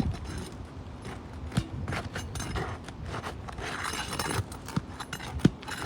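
Roofing nails being pried out from under asphalt 3-tab shingles: scattered sharp knocks and clicks with stretches of scraping as a tool works under the shingle, the sharpest knocks about a second and a half in and near the end.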